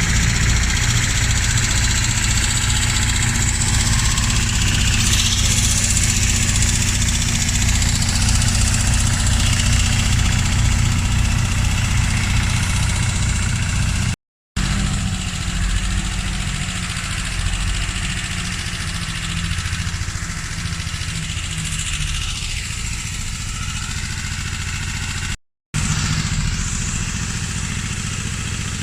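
Tractor diesel engine running steadily, with no big revs. The sound breaks off twice for a moment.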